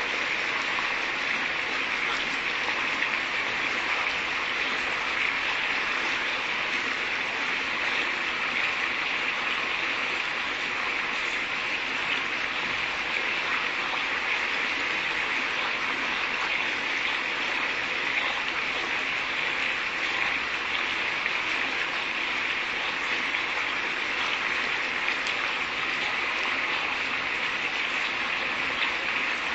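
Pork shoulder steaks sizzling steadily as they shallow-fry in oil in a frying pan, with a fine crackle of spitting fat running through the hiss.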